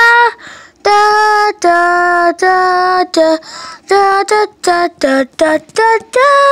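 A high voice singing a tune: short, quickly changing notes with several longer held notes, and a long held note starting about six seconds in.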